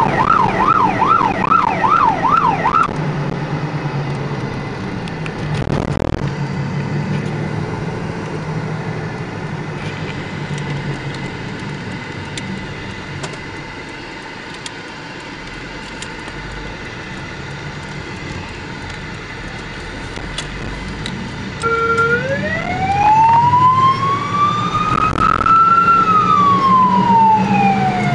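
Police car siren heard from inside the moving car: a falling wail switching into a fast yelp that cuts off about three seconds in. Engine and road noise fill the middle, with a single thump, until the siren starts again about 22 seconds in as a slow wail rising and then falling.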